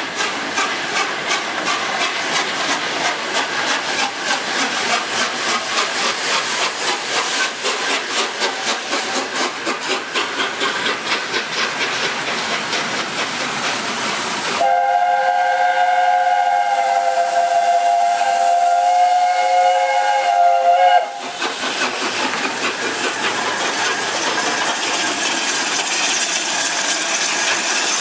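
Pacific steam locomotives working a train away, their exhaust beats chuffing in a quick, even rhythm. About halfway through, a steam chime whistle sounds one long blast of several notes held together for about six seconds and cuts off sharply. After it come the steady hiss of steam and the rumble of the train.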